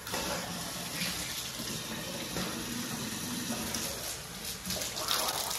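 Pull-down kitchen faucet coming on suddenly and running steadily into a stainless steel sink.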